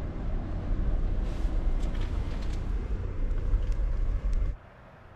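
Steady low rumble and rattle inside a moving passenger rail car, with a few sharp clicks. It stops abruptly about four and a half seconds in, leaving only a faint hiss.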